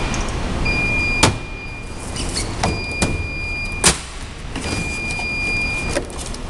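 An electronic beeper sounds a high tone about a second long every two seconds, over a steady low machinery hum. Sharp knocks come between the beeps, the two loudest about a second in and near four seconds in.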